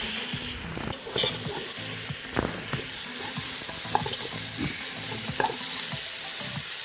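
Food frying in a pan, with a steady sizzle and short knocks and clicks of a utensil stirring against the pan.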